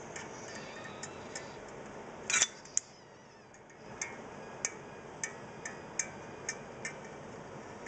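Caulking gun loaded with silicone being pumped by hand, giving a sharp click roughly every half second as it lays a thick bead. About two and a half seconds in there is a brief louder scrape, then about a second without clicks before the clicking starts again.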